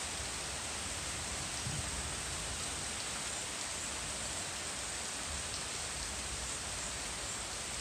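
Heavy rain pouring steadily onto tree leaves and a lawn, an even, unbroken hiss.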